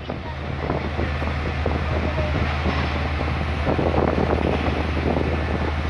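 Steady low engine drone under a rough rumbling haze of traffic and building-site machinery, with scattered small knocks and rattles.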